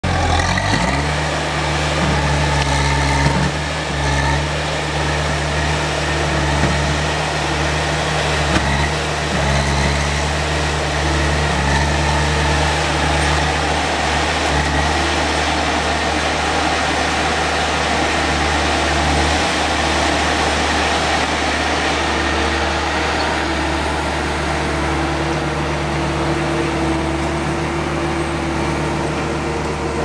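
Diesel engine of a compact tracked loader running steadily as the machine moves a cut tree limb, with a few brief knocks in the first ten seconds.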